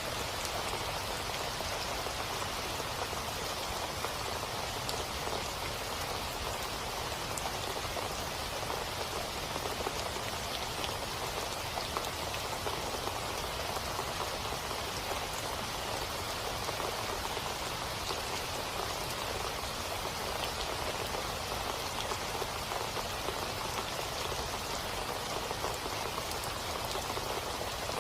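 Rain falling steadily, an even patter of many drops with no pause or change.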